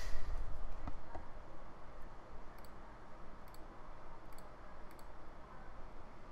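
A few light computer-mouse clicks over a steady low microphone hum and room noise.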